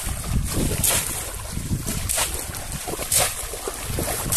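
Shallow pond water splashing as a bamboo cone fish trap is plunged down into it and a man wades forward, about once a second.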